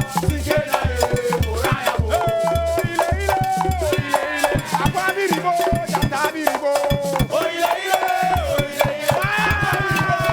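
Upbeat dance-band music with a pulsing bass line, busy percussion and a gliding melody line. The bass drops out for a few seconds in the middle, then returns.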